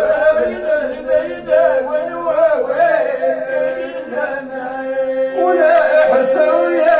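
Men chanting Sufi devotional poetry in the Moroccan rasma style with no instruments: a lead male voice sings a winding, ornamented melody over a steady held note.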